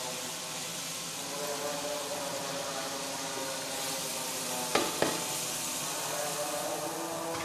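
Potatoes, tomatoes and green chilli paste sizzling in a pot, with water poured in partway through. Two sharp knocks come about a second apart near the middle.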